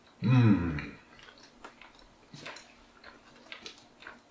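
A short hummed "mmm" from a man tasting food, with the pitch sliding, followed by quiet chewing and a few faint clicks.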